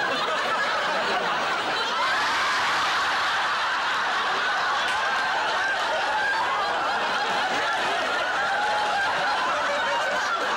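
A studio audience laughing, many people at once in a steady, continuous wave of laughter.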